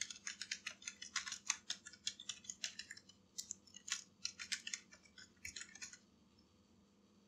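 Typing on a computer keyboard: a quick, irregular run of key clicks that stops about six seconds in.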